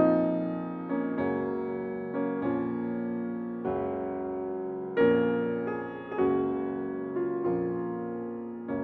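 Background piano music: slow chords, each struck and left to ring and fade before the next, roughly one a second.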